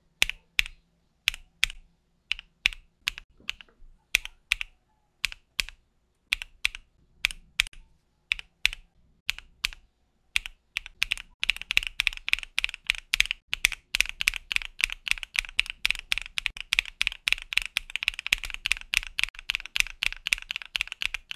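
Mechanical keyboard with AKKO V3 Cream Yellow linear switches being typed on: for about ten seconds, single keystrokes at roughly two to three a second. Then fast continuous typing.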